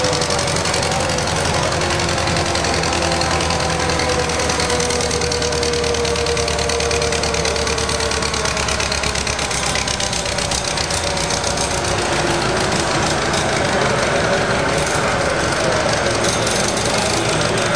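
Cockshutt 60 tractor engine running hard under load as it pulls a weight-transfer sled, a steady engine note that sinks slightly in pitch partway through.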